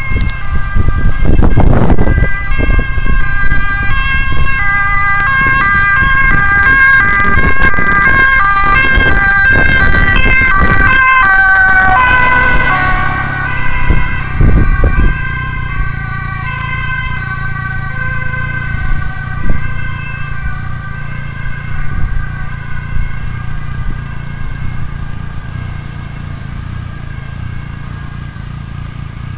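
Dutch ambulance's two-tone siren alternating between two pitches as it approaches and passes, dropping in pitch about twelve seconds in and then fading as it drives away. Car and motorcycle traffic runs underneath.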